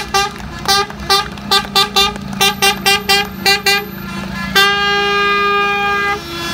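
Fire truck horn sounding a rapid run of short honks, about three or four a second, then one long blast of about a second and a half near the end, over a steady engine hum.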